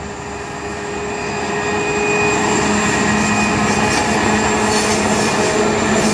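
Two 81 class diesel-electric locomotives passing close by under power, their two-stroke EMD diesel engines making a steady drone. The drone grows louder over the first two seconds, then holds as the locomotives go past.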